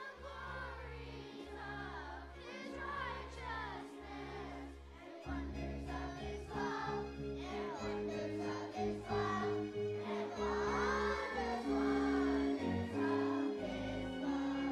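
Children's choir singing a song over instrumental accompaniment with a steady bass line; the music gets louder about five seconds in.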